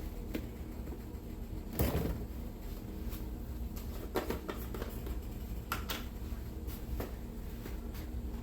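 Scattered knocks and clicks of kitchen handling, spice containers and a cupboard being moved about, with the loudest knock about two seconds in. A low steady hum runs underneath.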